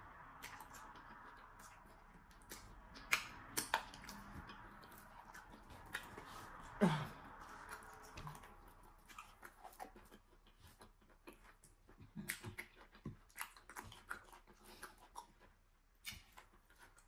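Close-miked eating by hand: wet mouth smacks, chewing and finger-sucking on eba swallowed with slimy ogbono soup, heard as scattered sharp clicks. About seven seconds in there is one louder drawn-out sound that falls in pitch.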